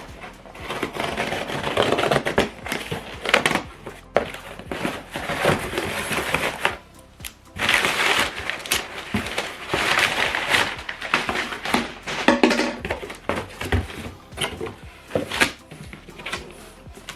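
Parcel packaging being handled and opened: irregular crinkling, rustling and sharp clicks, with music in the background.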